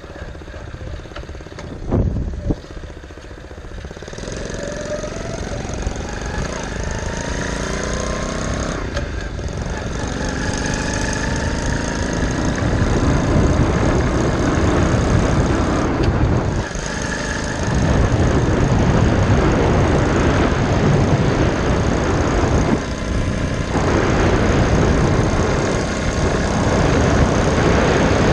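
Small gas engine of a custom motorized bicycle accelerating, its pitch rising over several seconds, then running at speed with wind noise on the microphone. Two sharp knocks about two seconds in, and the engine sound dips briefly twice in the second half.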